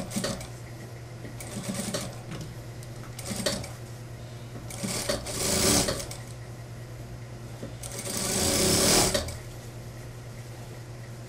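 Industrial sewing machine stitching in short runs over a steady motor hum. The two longest and loudest runs come around five and eight seconds in.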